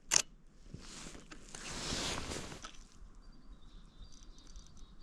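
A sharp click, then a rustling hiss that swells and fades over about two seconds. From about three seconds in, faint high chirping calls of a bald eagle.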